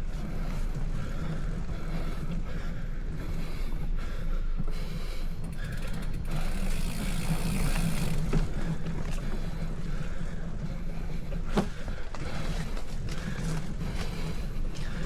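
Steady low rumble of wind and riding noise on the microphone of a camera on a bicycle. A brighter hiss swells about six to eight seconds in, and there is one sharp click near twelve seconds.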